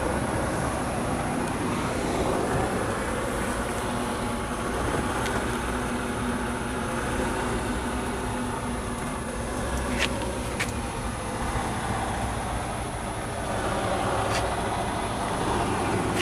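1972 Chevrolet El Camino's engine idling steadily, with two sharp clicks about ten seconds in and another near the end.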